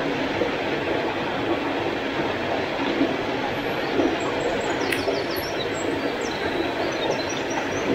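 Steady rush of a small mountain stream and its little waterfall, an even noise with no change in level. A single sharp click comes about five seconds in.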